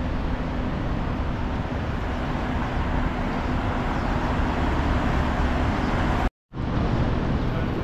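Steady road traffic noise from cars and taxis on a wide multi-lane road, an even hum with no single vehicle standing out. It drops out abruptly for a moment about six seconds in, then similar noise carries on.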